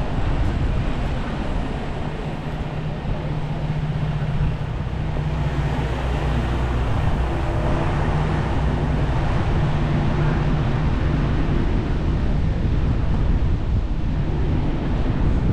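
Steady city street traffic noise heard from a moving bicycle, with a low engine hum that fades about ten seconds in.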